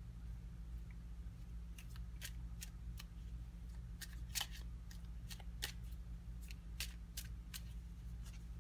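Tarot cards being handled and shuffled to draw the next card: a quick, irregular run of light clicks and snaps that starts about two seconds in and goes on for several seconds, over a steady low hum.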